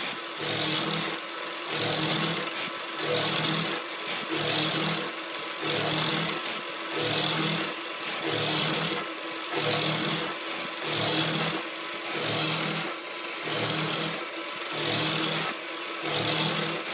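An X3 small mill's four-flute variable-flute AlTiN end mill cutting 6Al-4V titanium with the spindle running. The cut swells and fades evenly a little more than once a second. It sounds smooth and steady: the end mill is cutting well.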